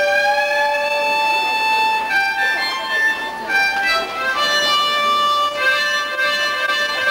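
Instrumental music: a slow melody of long held notes that change pitch every half second to a second.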